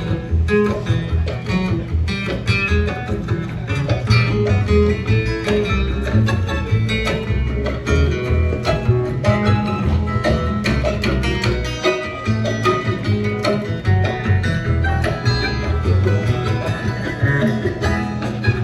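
Acoustic string band playing an instrumental break in a folk/bluegrass style: busy plucked guitar-type lines over upright bass, with a bowed string instrument, and no singing.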